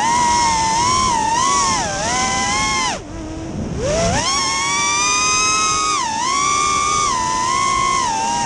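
Racing quadcopter's Racestar BR2205 2600KV brushless motors spinning three-blade 5-inch props, a whine whose pitch rises and falls with the throttle. About three seconds in the pitch drops steeply and the sound goes quieter for about a second, then climbs back up as the throttle is punched again.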